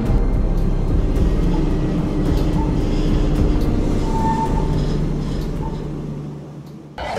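Low steady rumble under cinematic soundtrack music, fading away over the last couple of seconds, then a sudden loud hit just before the end.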